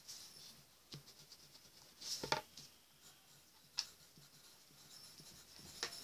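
Pencil writing on drawing paper: soft scratching as words are lettered. A few brief taps or paper rustles come through it, the loudest a little over two seconds in.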